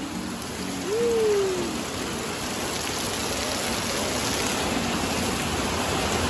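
Heavy rain pouring down, a steady hiss of drops on the ground with water streaming off a roof edge. A short call rises and then falls in pitch about a second in.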